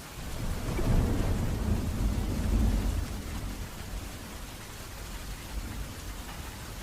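Thunder rumbling over steady rain: a deep roll that swells right away, peaks about a second in, and dies away after about three seconds, leaving the rain.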